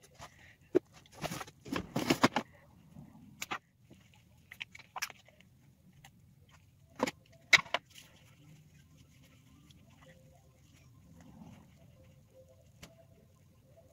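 Makeup products and their containers being handled: scattered clicks and knocks, a burst of rustling around two seconds in, and two sharp clicks about seven seconds in, then quieter handling over a faint low hum.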